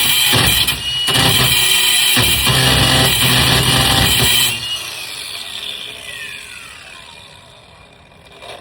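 Loud music with a drum kit, which stops about four and a half seconds in and dies away gradually over the following seconds, with a few falling tones in the tail.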